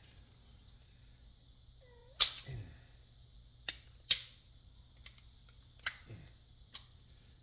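Sharp knocks and taps on a die-cast metal outdoor outlet box as it is worked apart to free a rod. There are five strikes spaced unevenly over several seconds, with a faint short squeak just before the first.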